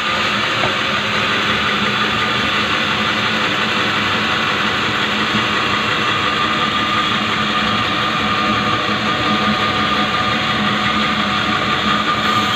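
Sawmill saw machine running steadily: a continuous mechanical drone with a steady hum, unchanging throughout.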